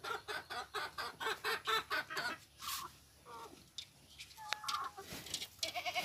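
Chickens clucking: a rapid run of clucks, about five a second, for the first two seconds, then a few scattered clucks.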